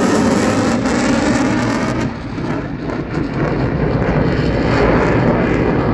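Eurofighter Typhoon's twin jet engines in reheat (afterburner) as the fighter flies away: loud, continuous jet noise whose high hiss dies off about two seconds in, leaving a deep rumble.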